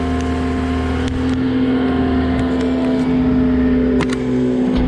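Cat 259D compact track loader's diesel engine running steadily at a high idle, with a few sharp metallic knocks about a second in and near the end.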